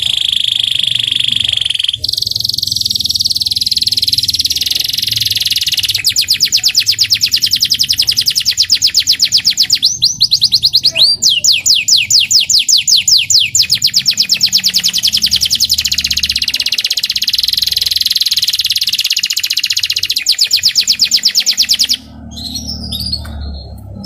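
Young local canary singing loud twittering 'riwikan' song: long runs of rapid, high-pitched trills, with a short break of falling notes about eleven seconds in. The song stops suddenly near the end.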